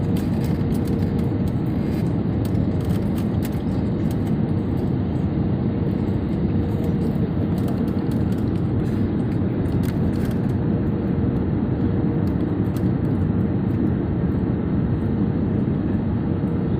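Steady deep noise of an IndiGo airliner during its landing, with a faint steady hum and no change in level.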